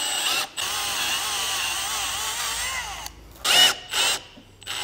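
Milwaukee M18 cordless drill on a slow setting boring a head stud hole deeper into an aluminium engine block. It gives a steady whine that wavers in pitch, with a brief stop about half a second in, and runs for about three seconds. Two short, louder trigger bursts follow near the end.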